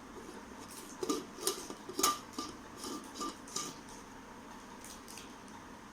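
Mixer grinder jars and lids being handled, a run of light clinks and knocks over a couple of seconds with the sharpest about two seconds in, then quiet.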